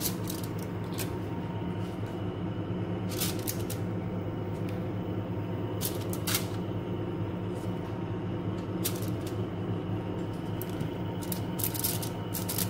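Wooden skewers of chicken being set down and shifted on an aluminium-foil-lined tray: scattered short crinkles and taps of the foil, over a steady low hum.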